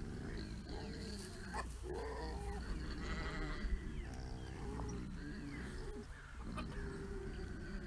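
Several sheep bleating, their calls overlapping one another.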